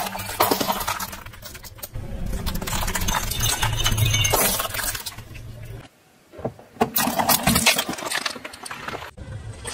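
Car engine running slowly while small hard objects crackle and clink as they are crushed under its tyres; the sound cuts off abruptly about six seconds in, then resumes.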